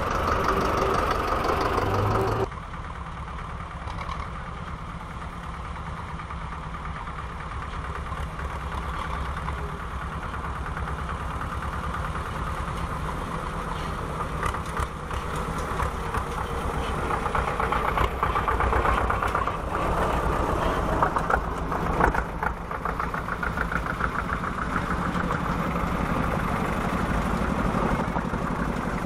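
Engines of vintage tractors chugging past one after another at low speed, with a steady rapid pulse of firing strokes. The sound drops suddenly about two seconds in, then slowly grows louder again as the next tractors come close.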